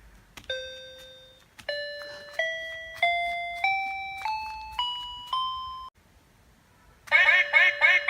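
Roll-up electronic keyboard playing a rising scale of eight single notes, one after another, climbing an octave, each a plain electronic tone that fades as it sounds. After a short pause, near the end a louder run of fast, warbling notes starts.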